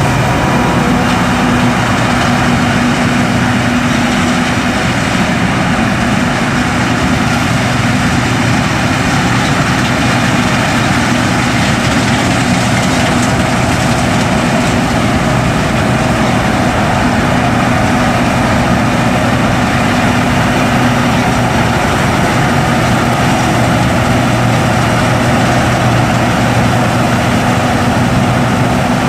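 John Deere S550 combine running steadily while harvesting, a continuous machine drone with a steady low hum.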